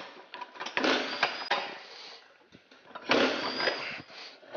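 A power tool, likely a pneumatic impact wrench, running in two short bursts of about a second each, with a faint high whine, during work on a quad tire and its bead-lock ring.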